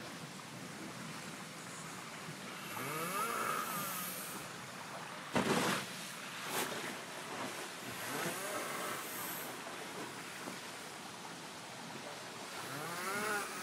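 A man snoring in a pipe bunk below deck on a Volvo Open 70 racing yacht, three long rasping snores about five seconds apart, over the steady rush of the boat moving through the water. A short loud thump comes about five and a half seconds in, followed by a sharp click.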